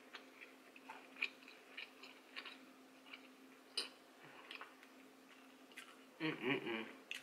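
Close-mic chewing of a mouthful of grilled T-bone steak: small wet mouth clicks and smacks scattered throughout, with a louder stretch of about a second a little after six seconds in.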